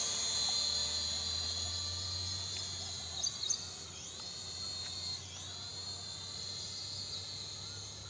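Small toy quadcopter camera drone in flight, its propeller motors giving a steady high-pitched whine that dips in pitch briefly twice, about four and five seconds in, as it is steered. Two short sharp sounds a little after three seconds in.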